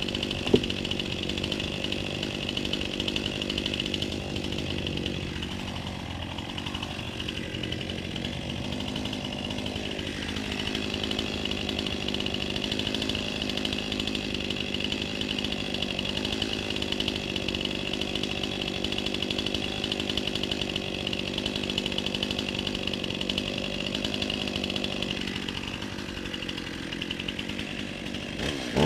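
Two-stroke chainsaw engine running at a steady speed, with a single sharp click about half a second in. Right at the end it revs up sharply, rising in pitch and getting much louder.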